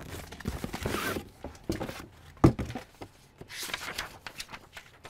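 A cardboard box and a sheet of paper rustling and scraping as an iPad is unpacked and handled, with a few light knocks, the sharpest about two and a half seconds in.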